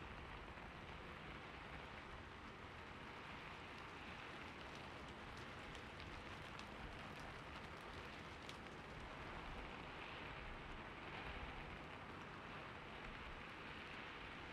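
Steady soft hiss and patter of falling water, with faint scattered droplet ticks.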